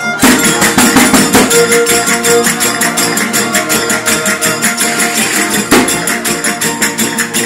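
A verdiales folk band playing: guitars strummed fast and a large tambourine (pandero) struck in a quick, even beat.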